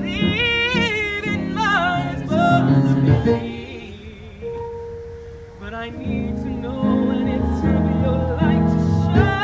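Musical-theatre song: a solo voice sings with strong vibrato over a sustained chordal accompaniment. About three seconds in it holds one long note, then the music drops back before swelling again.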